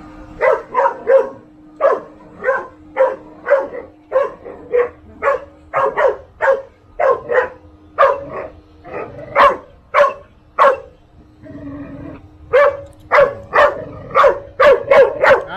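Dog barking over and over, about two sharp barks a second, with a brief pause a few seconds before the end.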